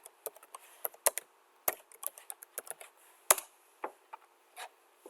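Computer keyboard typing with mouse clicks: a string of irregular short clicks, one louder click a little past halfway.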